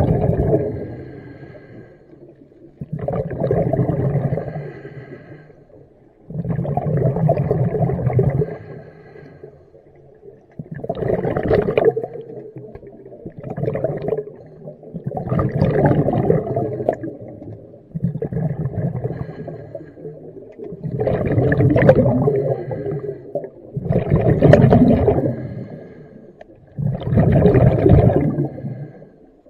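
Scuba regulator breathing heard underwater: a burst of exhaled bubbles every two to three seconds, about ten in all, some joined by the regulator's higher hiss.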